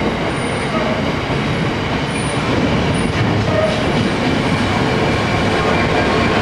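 Freight train's box wagons rolling past: a steady loud rumble of steel wheels on the rails, with a few brief high squeaks.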